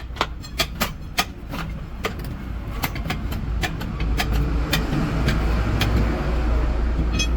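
An engine running with a low rumble that grows louder about halfway through. Over it come many sharp metallic clinks and knocks, thickest in the first couple of seconds.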